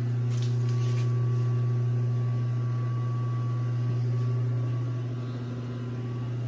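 A woodshop machine running with a steady low hum, with a few light clicks near the start.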